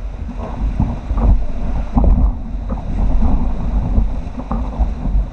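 Rushing whitewater and paddle splashes around an inflatable raft as the crew paddles through rough water, with a heavy low rumble from water and wind buffeting the raft-mounted action camera's microphone. The noise gets much louder at the start and stays loud, broken by a handful of sharp splashes.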